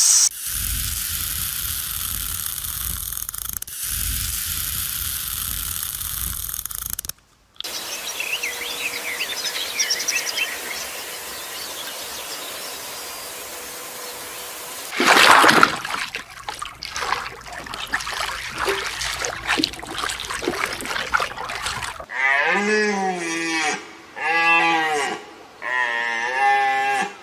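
A run of farm-animal sounds: a steady rushing noise at first, then faint high chirping, a loud outburst about halfway through, and near the end repeated short bleating calls, about one a second.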